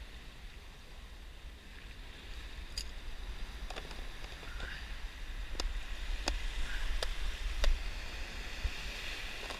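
Sea washing against the rocks with wind rumbling on the microphone, getting louder after the first few seconds, and a scatter of sharp clicks from fishing tackle being handled.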